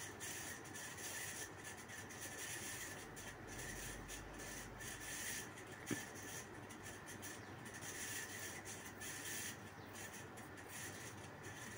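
Faint, repeated scraping of a flat spatula stirring sliced onions and spice powder in a kadhai, with a single small click about six seconds in.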